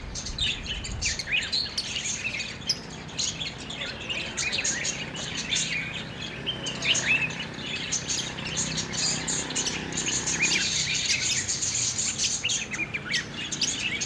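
Budgerigars chattering: a continuous stream of short chirps and warbling calls.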